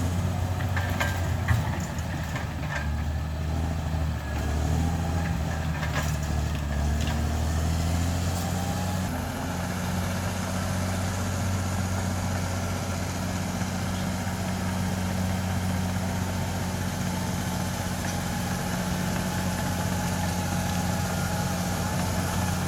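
Bulldozer's diesel engine running at a steady, even speed, with a few sharp knocks in the first several seconds.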